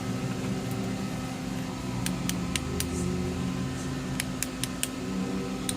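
Steady low mechanical hum, like a small fan, with scattered sharp light ticks: three close together about two seconds in and four more around four to five seconds in, while a transistor's legs are being soldered onto a circuit board.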